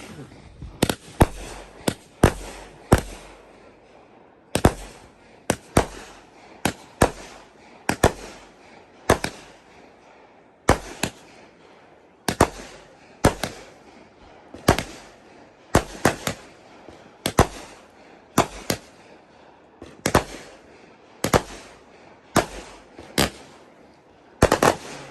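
Fireworks going off: a long run of sharp, loud bangs, one or two a second at uneven intervals.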